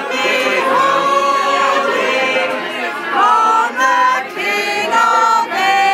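A small group of voices singing together in long held notes.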